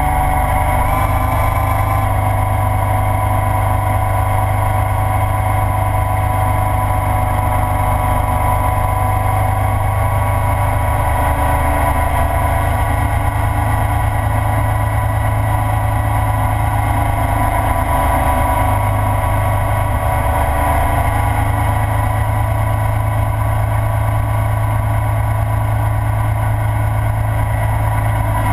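Ural sidecar motorcycle's flat-twin engine running steadily at cruising speed, with wind and road noise. It is heard from a camera mounted on the sidecar's nose.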